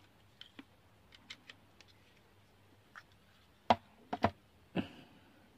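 Handling noise: scattered light clicks, then a few louder knocks about four seconds in, as a power bank is connected to the phone that is recording.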